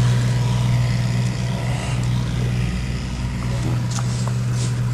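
A steady low motor hum, unchanging throughout, with a few faint knocks about four seconds in.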